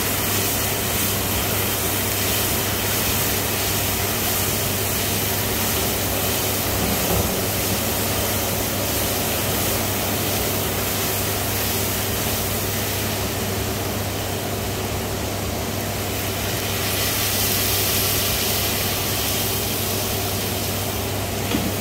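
Gas-fired automatic robot wok running: the steady rushing noise of its gas burner with a constant low hum from the machine, and a brief knock near the end.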